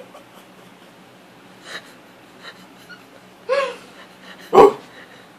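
A few short sounds from a small dog on the bed, the loudest a sharp one near the end.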